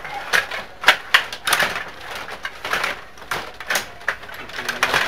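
Table hockey game in play: about ten sharp, irregular clicks and clacks of the rods, players and puck striking.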